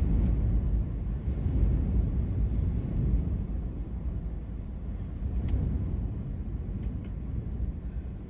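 Strong gusty wind buffeting the car, heard from inside the cabin as a deep, uneven rumble. A faint click about five and a half seconds in.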